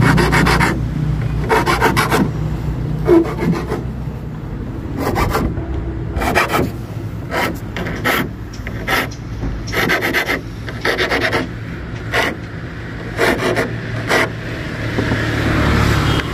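Flat hand file rasping a motorbike key blank into shape, in a run of short, irregularly spaced strokes, with a low steady hum underneath.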